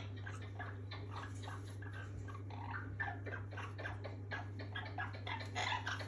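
Parrot chatter: a run of short, irregular clicks and chirps, several a second, over a steady low hum.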